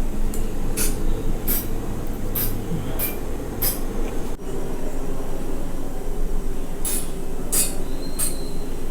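Sesame oil spray bottle spritzing oil onto an idli plate in short hissy bursts, about six quick ones in the first four seconds and three more near the end, over a steady low rumble.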